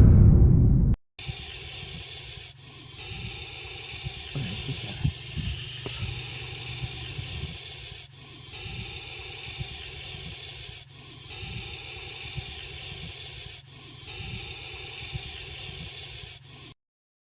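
Russell's viper hissing: long, steady hisses lasting about three to five seconds each, broken by brief pauses as the snake draws breath. The hissing starts about a second in and stops shortly before the end.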